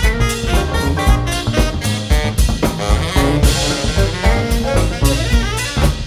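Small jazz big band playing live: saxophones and brass over upright bass, piano, guitar and drum kit, with a steady swinging beat.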